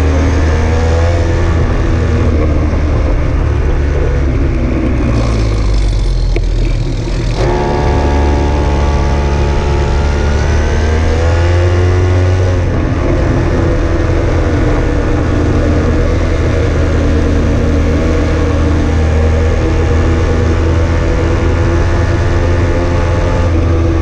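A motor vehicle's engine running on the move. The note drops away about five seconds in, picks up again about two seconds later and rises steadily as it accelerates, then holds at a steady cruise.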